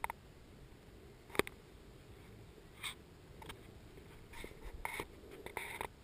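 Handling noise on the camera: scattered clicks and knocks, one louder about a second and a half in, then a run of rubbing and scratching near the end.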